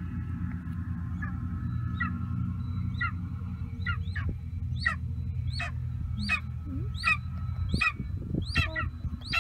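Young golden eagle calling: a series of short, sharp, downward-sliding notes, about one every 0.7 seconds, coming closer together and louder toward the end. A steady low rumble runs underneath.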